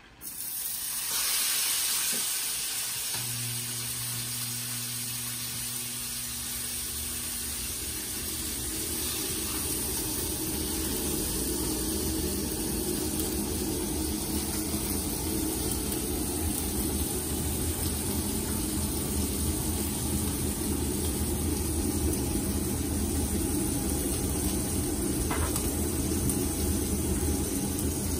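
Steak sizzling in a hot cast-iron skillet, starting suddenly as it goes into the pan and continuing as a loud, steady hiss. A low hum joins a few seconds in and turns into a steady low rumble underneath.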